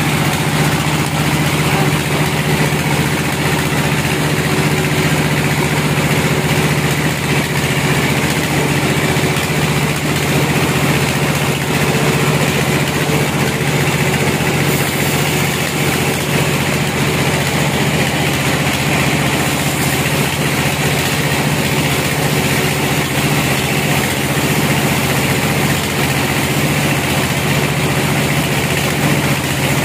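Band sawmill running with a steady, even drone from its drive while a log is fed through the band blade.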